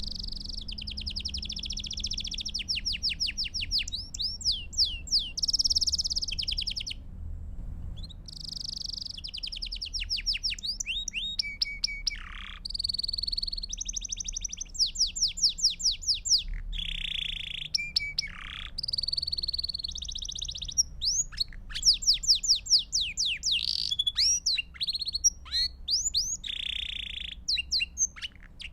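Belgian canary singing a long song of rapid trills and rolls, each phrase a fast string of repeated notes, changing from one phrase to the next, with a short break about seven seconds in.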